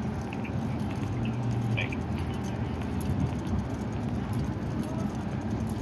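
Steady low engine rumble from heavy machinery or traffic, with a few faint clicks about two seconds in.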